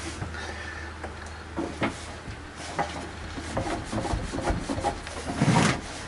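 Microfiber cleaning cloth scrubbing and wiping the inside of a microwave: an irregular rubbing with a few short knocks, loudest just before the end.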